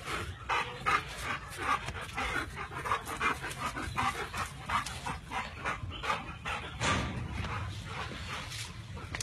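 Dog panting hard in a quick steady rhythm, about three breaths a second.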